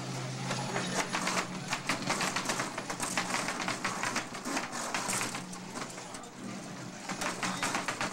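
Small combat robots clattering and scraping against each other and the plywood arena floor as they push: a dense run of rapid clicks and rattles over a steady low hum.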